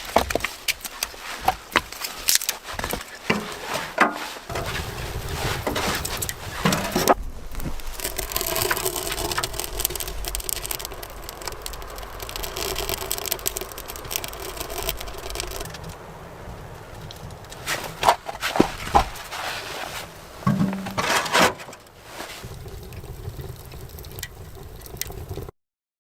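Irregular knocks and scraping of wood being handled and worked, ending in an abrupt cut-off near the end.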